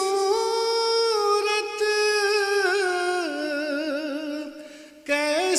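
A man's voice singing a line of Urdu verse in long, drawn-out melodic phrases. One held phrase steps down in pitch about three seconds in and fades away, and a new phrase begins just before the end.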